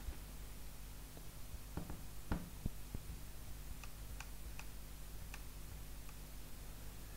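Faint scattered clicks and light ticks over a low steady hum: a few soft clicks about two seconds in, then about six light ticks spaced roughly half a second apart.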